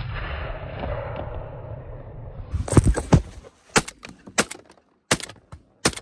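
The rolling echo of a gunshot fired just before, rumbling across open fields and fading over the first two and a half seconds. After that comes a run of sharp, loud knocks and bumps, about one a second.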